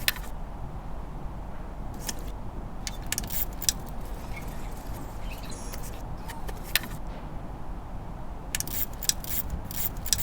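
Scattered metallic clicks and clinks of hand tools on car battery terminals as the battery is reinstalled, including a couple of quick runs of clicks, over a steady low hum.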